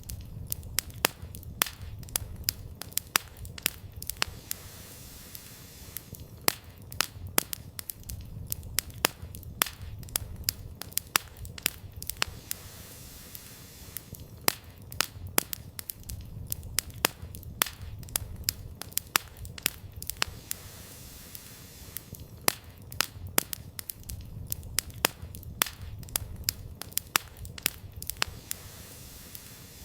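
Campfire burning, its firewood crackling and popping irregularly several times a second, over a low rumble of the flames that slowly swells and eases.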